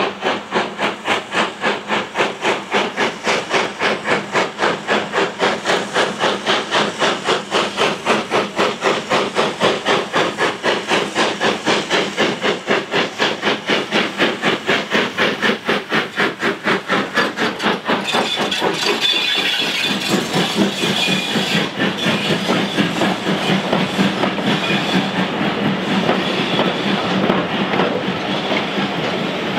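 LMS 4F 0-6-0 steam locomotive working hard under load, its exhaust chuffing in a quick, even beat. About 18 seconds in the chuffing gives way to the steady rumble and clatter of the coaches' wheels rolling past on the rails.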